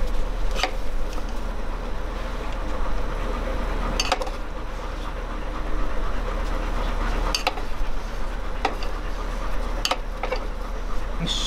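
Chopsticks stirring in a metal camping pot of soup, clicking sharply against the metal every second or few, about five times, over a steady even hiss.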